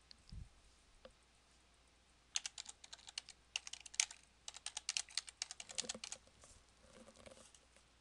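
Rapid keystrokes on a computer keyboard in three quick runs with brief pauses between them, starting a couple of seconds in and stopping about two seconds before the end.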